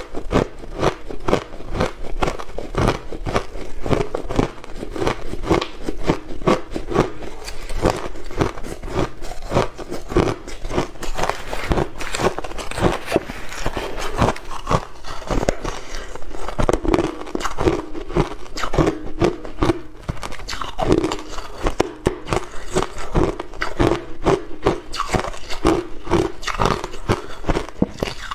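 Soft shaved ice being chewed, a dense, steady run of close crunches, with a metal spoon scraping into the ice in the pot.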